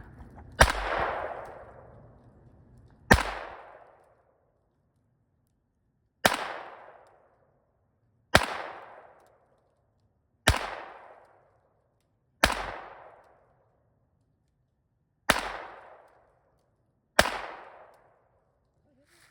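Eight .22 gunshots fired one at a time, about two seconds apart, each a sharp crack with a short fading echo.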